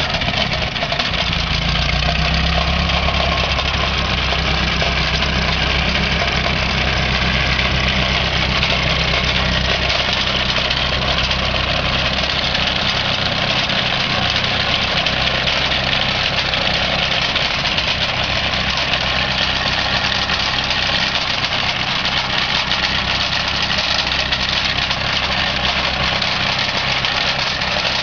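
Ferguson TEF20 tractor's four-cylinder diesel engine running steadily as it drives along. Its mechanical noise comes from the radiator fan and loose ball bearings in the cooling-water pump, a sign of a worn water-pump bearing. The deep low rumble weakens a little about halfway through.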